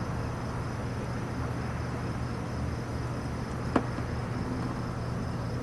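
Crickets chirping faintly in a steady pulsing trill over a steady low hum, with a single sharp click about two thirds of the way through.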